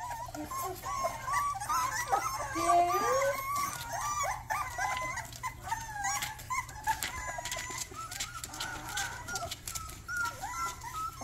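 Several Rottweiler puppies whining together, many short high cries overlapping and rising and falling in pitch, with scattered light clicks.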